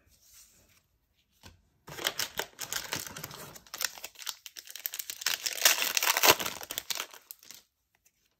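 Plastic wrapper of a Panini Elite basketball card pack being torn open and crinkled by hand. A dense run of crackles starts about two seconds in, grows loudest near the end and stops suddenly shortly before the end.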